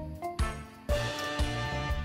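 Background music with a steady drum beat, about two beats a second, under pitched instrument notes.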